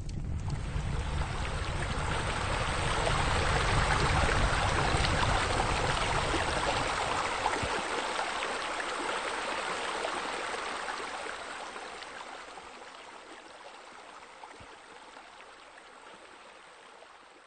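A water wall pouring into a pool with a steady rush of falling, splashing water. It swells up over the first few seconds and slowly fades away, with a low rumble under it for about the first half.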